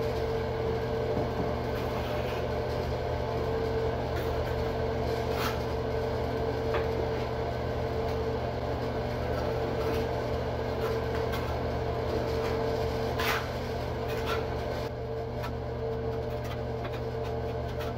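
A steady mechanical hum, with a few short light scrapes and taps from a trowel spreading thinset mortar on a shower floor.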